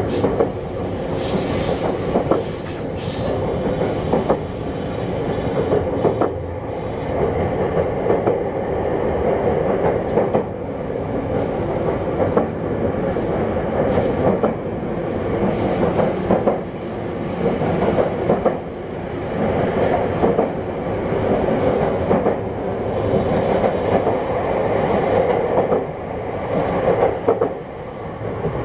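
Interior running sound of a JR West 321 series electric train, taken in the motor car with Toshiba traction equipment: a steady rumble of wheels on rail with frequent rail-joint clicks, and brief high wheel squeals in the first few seconds.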